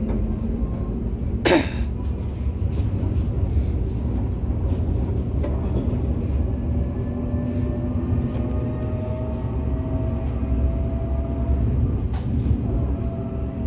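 Heard from inside a moving electric city tram: a steady rumble of wheels on rails with a faint electric motor whine that rises and then falls in pitch. There is one sharp clack about a second and a half in.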